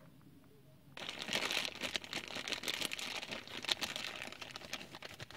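Clear plastic bubble wrap crinkling as it is handled and pulled open to unwrap a new turn-signal bulb, starting about a second in and going on without a break.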